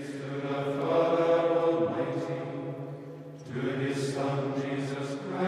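Men's voices chanting plainsong: monastic chant sung on a low, nearly level pitch in two long phrases, with a short break about three and a half seconds in.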